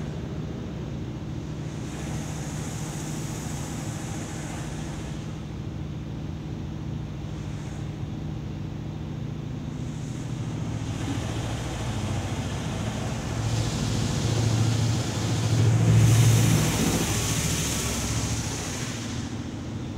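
High-pressure water jets of a touch-free automatic car wash hissing against the car, heard from inside the cabin over a steady low hum. A brief spray passes a couple of seconds in; then the spray builds, is loudest about three-quarters of the way through, and eases off near the end.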